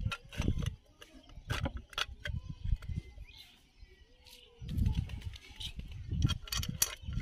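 Scattered light clicks and clinks of metal Splendor Plus engine parts and hand tools being handled during assembly, with duller bumps of handling about two-thirds of the way through.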